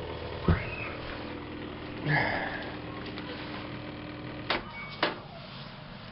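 LG washer's drain pump humming steadily without pumping any water out, the sound of a bad drain pump. The hum cuts off about four and a half seconds in, with two sharp clicks as a button on the washer's control panel is pressed.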